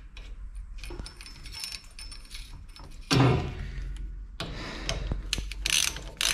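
Small metal clinks as a new idler pulley, its washer and bolt are fitted to a belt tensioner held in a vice, with one loud scrape about three seconds in. From about four and a half seconds a hand socket ratchet clicks as the pulley bolt is run in, in short strokes about two a second near the end.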